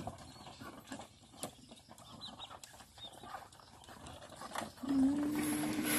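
Muscovy ducks and chickens pecking feed from a concrete trough: scattered small taps and clicks with a few faint high peeps. Near the end a long steady pitched note comes in, with a hiss over it.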